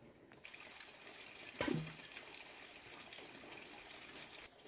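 Water running steadily for about four seconds, with a single knock about a second and a half in.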